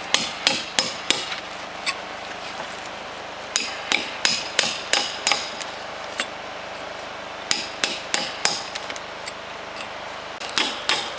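Claw hammer tapping a caulking iron to drive tow into the seam between logs of a log wall, the secondary packing of the caulking. The light, sharp strikes come in short quick runs with pauses between them.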